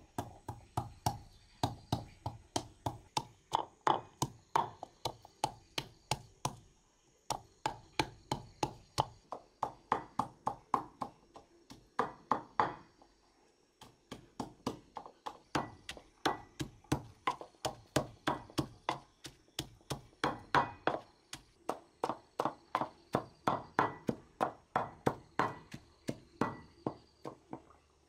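Wooden pestle pounding into a clay mortar, grinding a paste with a steady rhythm of about three strikes a second, broken by two short pauses.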